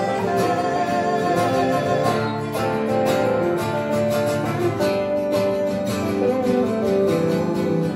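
Two acoustic guitars playing a song together live: strummed chords with single picked melody notes ringing over them.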